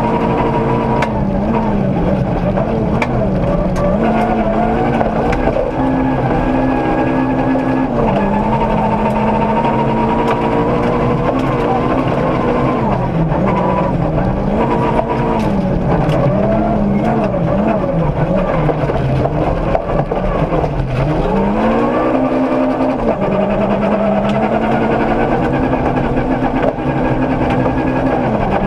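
Ford Ka 1400 rally car's engine heard from inside the cabin, driven hard on a gravel stage: the revs climb and fall through gear changes, dropping deeply a few times under braking before pulling up again. Sharp clicks of gravel striking the car run through it.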